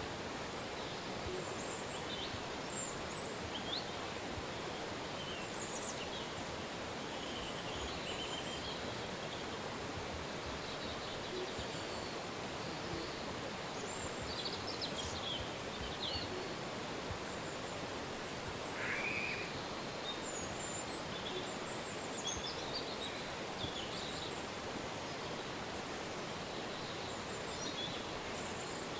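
Steady rush of a river, with short bird chirps and calls scattered over it.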